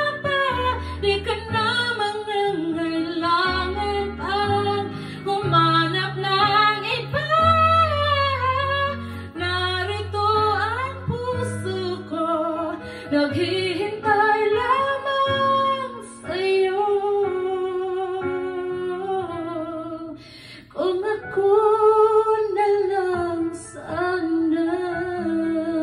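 A woman singing a Tagalog ballad into a microphone over an instrumental backing track with low bass notes. The voice moves through the melody and holds notes with vibrato, dropping away briefly about twenty seconds in before a long held phrase.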